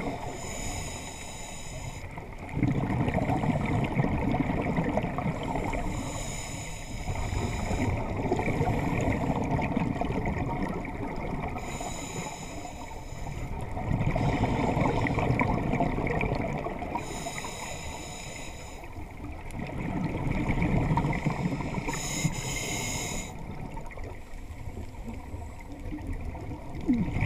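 Scuba diver breathing through a regulator underwater: a hissing inhale through the demand valve, then a longer bubbling exhale, repeating about every five to six seconds, five breaths in all. The bubbling exhales are the loudest part.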